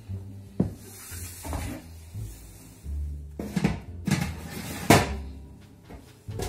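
Metal baking tray and oven rack clanking and knocking as the tray is slid into a domestic oven: several separate knocks, the loudest about five seconds in. Background music plays underneath.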